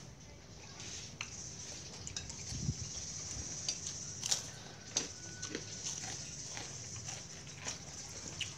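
Light clicks and taps of chopsticks and a spoon against ceramic bowls and plates during a meal, a few scattered strikes over a steady high-pitched background drone.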